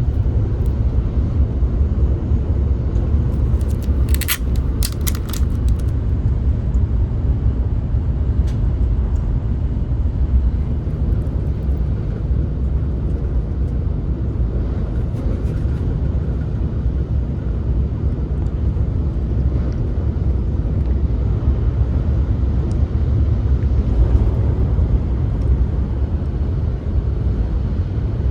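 Steady low rumble inside a bullet train's passenger cabin, with a brief cluster of clicks about four seconds in.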